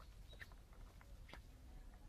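Near silence, with a few faint short ticks.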